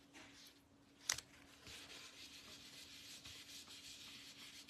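Faint scratchy rubbing of a foam ink dauber dragged over cardstock along the edge of a paper mask, sponging ink on, with a single sharp click about a second in.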